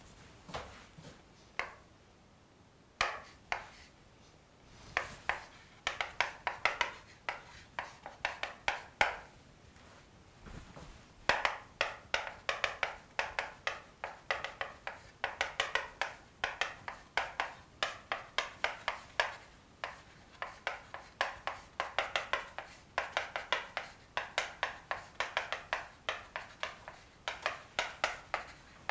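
Chalk writing on a chalkboard: rapid clicking taps and short scratches of the chalk stick, coming in dense bursts of strokes with brief pauses between them.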